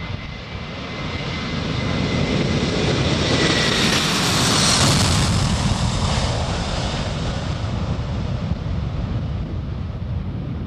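Boeing 747-400's four Rolls-Royce RB211 turbofans at takeoff thrust as the jet lifts off and passes close by: a loud jet roar that swells to a peak about four to five seconds in, then fades as it climbs away. A thin high whine drops in pitch as it goes past.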